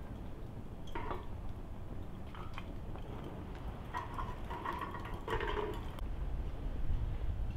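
Light metallic clinks and knocks as a bent metal chimney pipe is handled and fitted on top of a burning samovar: one about a second in, and a cluster between about four and six seconds in. A low steady rumble runs under them.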